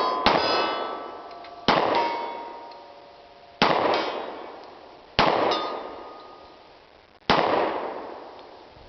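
Glock 20 10mm pistol firing five shots, one every one and a half to two seconds. Each shot is followed by the ring of a steel target struck at 80 yards and a long fading echo.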